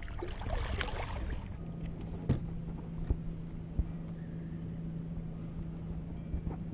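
Water splashing as a striped bass is let go beside a kayak, followed by a few sharp knocks a second or two later.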